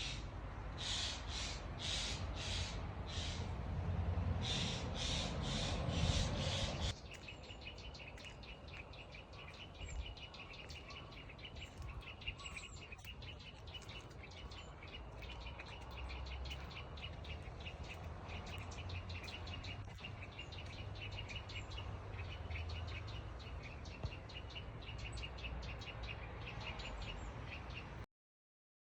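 Eurasian jay giving harsh, rasping 'jaa-jaa' calls in two runs of about six, two or three a second. After a sudden drop in level comes a long run of quick, light 'cho-cho-cho' notes, which the uploader takes to be probably the jay mimicking another bird such as an oriental greenfinch.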